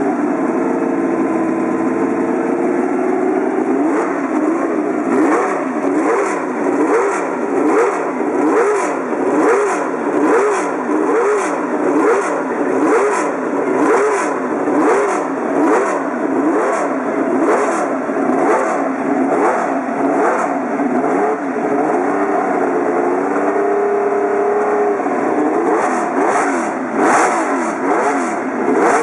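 Ferrari 312 T4's flat-12 Formula 1 engine being warmed up from the cockpit. It runs fairly steadily for a few seconds, then is blipped again and again, about once a second, each rev rising and falling in pitch. About three quarters of the way through it holds steady briefly before the blips resume.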